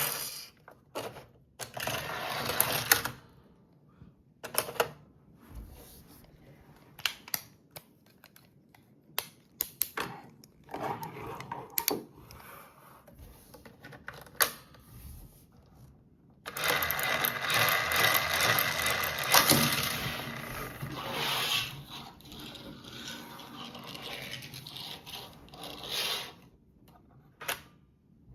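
Plastic toy pieces being handled: scattered clicks, knocks and scraping, with a louder, busier stretch of rattling about two-thirds of the way through.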